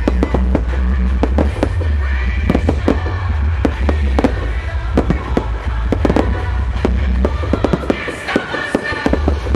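Aerial firework shells bursting and crackling in rapid succession, many sharp reports one after another, over loud music with a heavy bass. The bass drops out briefly near the end.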